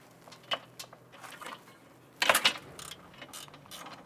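Ratchet and socket clicking and clinking while loosening the 13 mm nut on an A/C line fitting, with a louder clatter of clicks about two seconds in.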